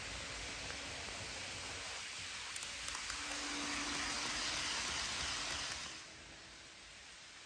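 HO scale model passenger train rolling along sectional track: a steady rushing hiss of small wheels on the rails with a faint motor hum, growing louder as the train passes close, then dropping off suddenly about six seconds in.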